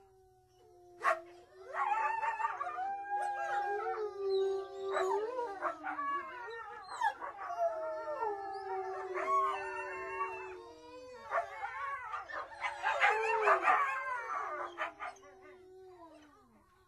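A pack of wolves howling in chorus: several long howls overlap and slide up and down in pitch, mixed with yips and short barks. One sharp sound comes about a second in, the chorus is busiest near the end, and then it fades out.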